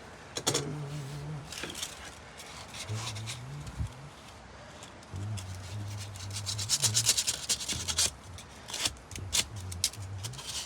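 Hand sanding of cured Bondo filler on wooden brick mold: scratchy rubbing strokes, coming in quick back-and-forth runs about two-thirds of the way through, with a few separate strokes near the end.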